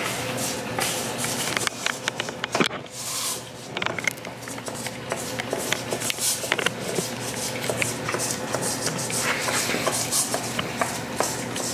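Airedale Terrier puppy licking and gnawing at a frozen dog treat in a small cup: a fast, irregular run of small wet clicks and scrapes as tongue and teeth work at the frozen treat and the cup.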